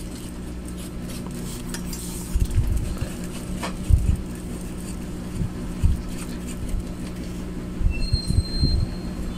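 A steady low electrical hum runs under several dull thumps and light clicks from handling and working over an amplifier's circuit board.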